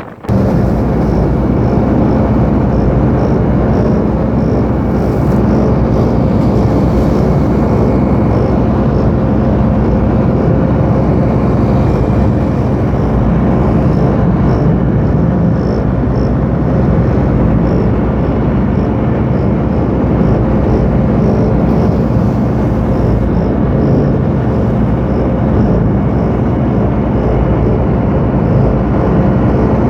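Loud, steady engine drone with a low hum, starting abruptly just after the start and holding at an even level.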